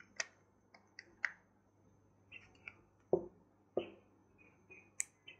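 Small clicks and taps from a Shimano Grappler baitcasting reel being handled as its side plate is fitted back on during reassembly: a dozen or so sharp ticks at irregular intervals.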